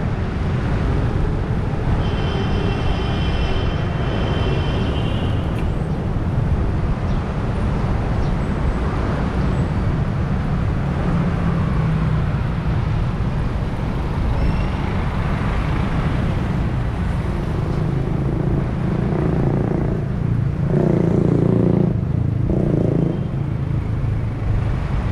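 City street traffic heard from a moving bicycle: a constant heavy low rumble of road and passing vehicles. About two seconds in, a high steady tone sounds for about three seconds. Around twenty seconds in, a louder vehicle passes close by.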